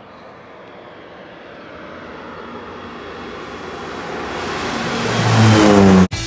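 Crop-duster airplane flying in low and passing overhead while spraying: its engine and propeller noise grows steadily louder, then falls in pitch as the plane goes over. The sound cuts off suddenly near the end.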